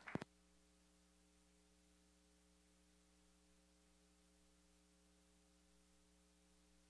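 Near silence with a faint steady electrical mains hum, after one short click near the very start as the handheld microphone cuts out.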